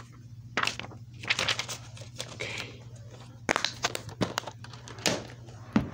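Plastic DVD cases and their paper inserts being handled, rustling and crinkling, with a series of sharp clicks and snaps from the plastic case.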